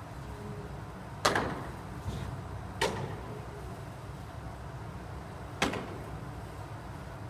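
Baseballs smacking into leather gloves during a pitching session: four sharp pops, the loudest about a second in and another near the end, over a low steady hum.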